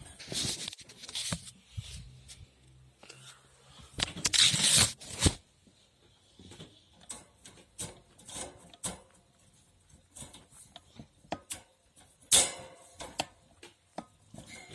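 Handling noises: scattered clicks, knocks and rustly scrapes, with a louder scraping rush about four seconds in and another about twelve seconds in.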